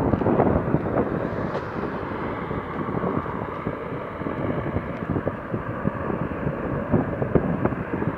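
Distant CH-53G transport helicopter's rotor and turbine noise, a steady low wash, mixed with irregular wind gusts buffeting the microphone.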